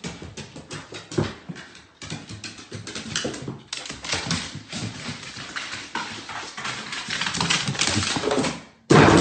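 A dog's claws and paws clicking and tapping on hardwood stairs as it climbs, in a quick, irregular run of taps. A sudden louder burst of noise comes right at the end.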